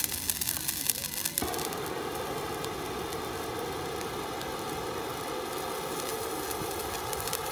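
Handheld spray firework burning, crackling at first, then about a second and a half in turning into a steady hiss of sparks as it changes colour stage.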